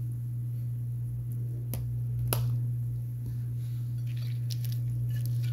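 Hands handling a corn-tortilla taco on a plate: two sharp clicks about two seconds in, then faint light ticks and rustles near the end as the tortilla is taken up. A steady low hum runs underneath.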